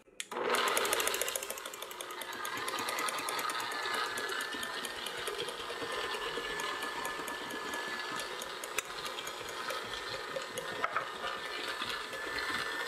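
Electric stand mixer running, its flat beater churning cream cheese in a stainless steel bowl as icing sugar is added: a steady motor whir with fast, even ticking.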